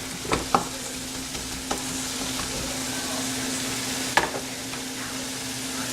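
Onion, tomato and spice masala sizzling gently in a frying pan over a low flame, with a steady low hum underneath and a few light knocks of a spoon stirring in the pan.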